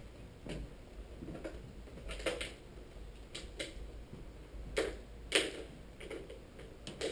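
Scattered short clicks and taps in a small room, about ten in all, the loudest a little past halfway: footsteps and whiteboard markers being picked up from the board's tray.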